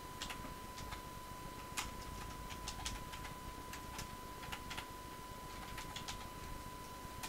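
Computer keyboard being typed on: faint, irregular keystroke clicks as a filename is entered. A steady faint high tone sounds underneath.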